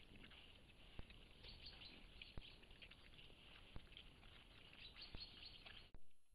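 Faint outdoor ambience through a trail camera's microphone: distant birds chirping over a steady hiss, with a sharp click about every second and a half. The sound drops out briefly near the end.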